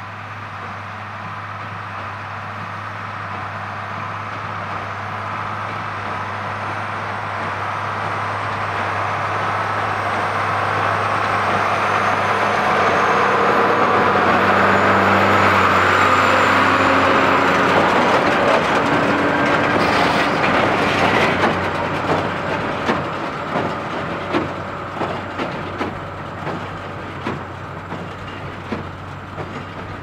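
Ford 8830 tractor's turbocharged six-cylinder diesel running under load as it pulls a New Holland BB940 large square baler past. It grows louder as it approaches, is loudest as it passes about halfway through, and then fades as it moves away. As it goes, the baler gives off regular clunks about once a second.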